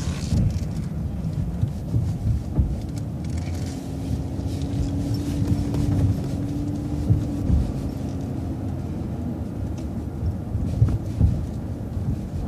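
Transit bus driving, heard from on board: a steady low engine and road rumble with a hum through the middle few seconds and a few short knocks and rattles near the end.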